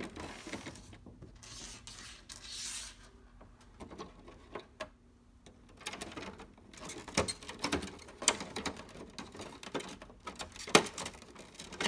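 Hands working the plastic wire retainer and wiring harness of a car headlight: soft rustling and rubbing at first, then a run of small plastic clicks and scratches, with one sharper click near the end.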